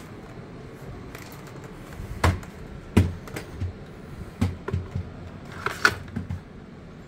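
A cordless stick vacuum being handled and clicked into its wall-mounted charging dock: a string of about ten hard plastic knocks and clunks, the loudest two about two and three seconds in.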